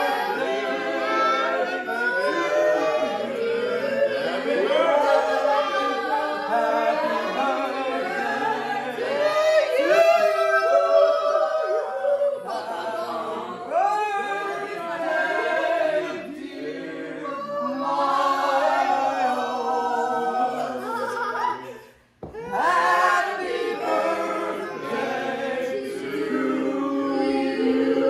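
A small group of people singing together unaccompanied, a capella. The singing breaks off for an instant about three quarters of the way through, then carries on.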